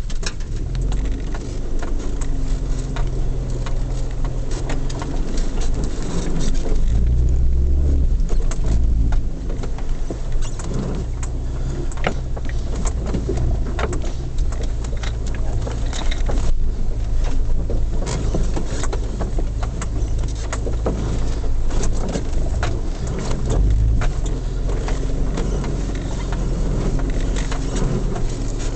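Mercedes 230GE's petrol four-cylinder engine running under load at low speed, heard from inside the cab, its note rising and falling as the throttle changes. Frequent knocks and clatters from the body and loose items in the cabin as the vehicle lurches over rough ground.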